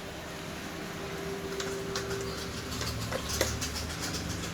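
Light, irregular clicks and taps of small metal engine parts being handled during a Vespa engine teardown, a few in quick succession in the second half.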